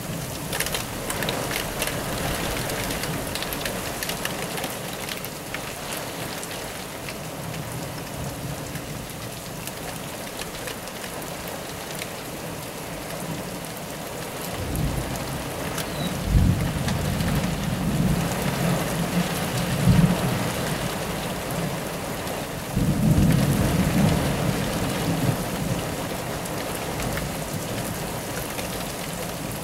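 Heavy thunderstorm rain beating on a window, a steady hiss dotted with sharp ticks of drops. Thunder rumbles in about halfway through, with two heavier jolts, and rumbles again a few seconds later.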